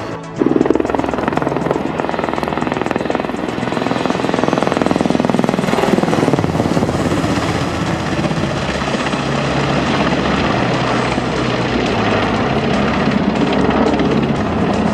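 Super Puma twin-turbine helicopter flying a low display pass, its rotor and turbines running loud and steady. The sound drops out for a moment right at the start, then comes back at full level.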